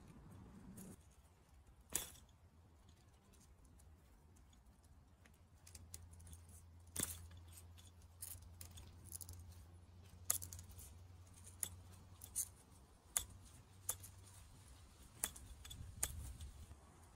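Faint, scattered sharp clicks and snaps of plastic irrigation parts being handled and fitted together: a PVC pipe fitting and a hose connection being worked by hand, about a dozen irregular clicks.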